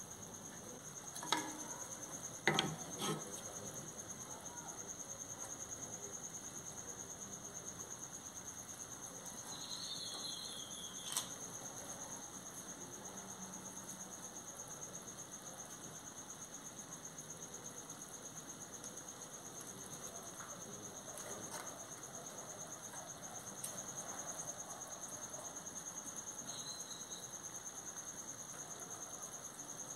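A steady high-pitched insect trill, the kind crickets make. A few short knocks come about a second, two and a half and three seconds in, and once more about eleven seconds in.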